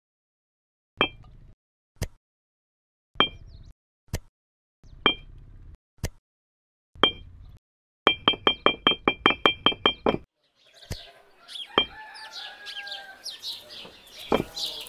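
Miniature clay bricks clinking sharply as they are set one at a time into a small toy trailer bed, about once a second, then a quick run of about a dozen clinks. A softer jumble of sounds follows in the last few seconds.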